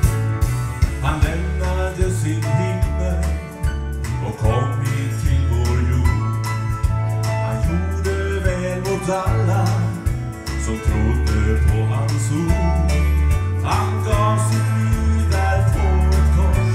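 A live band playing a country-gospel song, with guitar over a bass line in long held notes.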